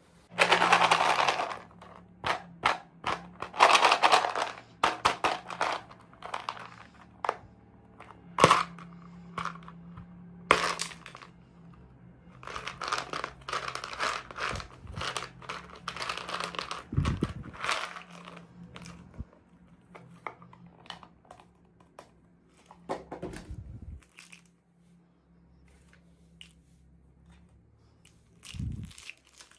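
Toy packaging crinkling and tearing as it is opened, in irregular rustling bursts with small clicks and taps. It is busiest in the first half and thins out over the last ten seconds, with a few dull low thumps.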